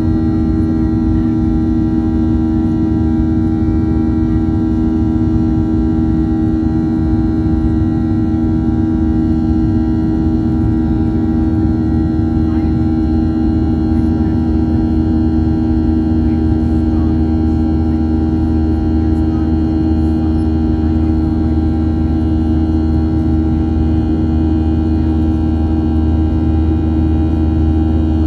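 Boeing 737-800's CFM56-7B turbofan engines at climb power, heard from inside the cabin beside the engine: a steady drone of several even hums over a deep rumble.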